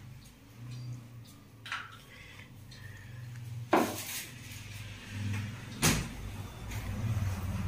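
A wooden cabinet door being handled, with two sharp knocks about two seconds apart. The first comes about halfway through, and a lighter knock comes before them.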